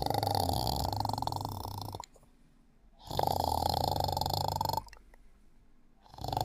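Someone asleep and snoring in a regular rhythm: a snore about every three seconds, each lasting a second and a half to two seconds, with quiet gaps between. One snore comes at the start, one about three seconds in, and a third begins near the end.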